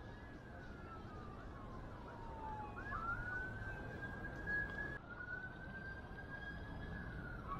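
A faint emergency-vehicle siren wailing, its pitch falling slowly, then rising again about three seconds in and holding high.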